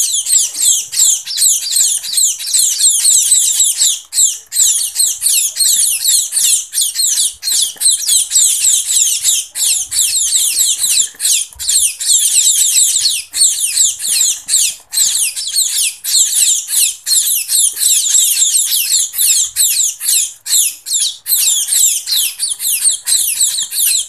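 A brood of young munia (emprit) fledglings giving shrill begging calls as they are hand-fed: many rapid, overlapping, downward-sweeping cheeps in a continuous chorus, with a few brief pauses.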